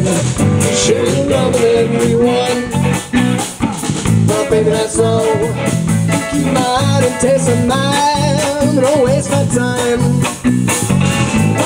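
Live band playing a song: electric guitar, bass and drum kit.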